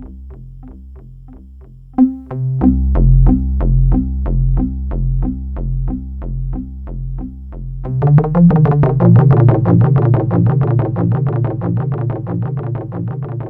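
Synthesizer playing a sequenced pattern of short repeated notes in a steady rhythm, about four a second. A louder bass sequence comes in about two seconds in, and a denser, brighter layer joins past the halfway point, then slowly grows softer.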